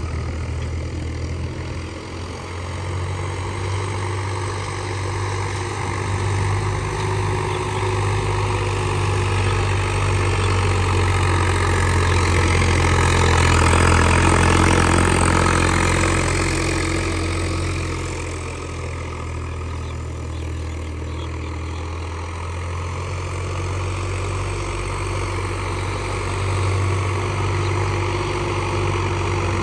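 Swaraj 744 FE tractor's diesel engine running steadily, growing louder toward the middle and then easing off.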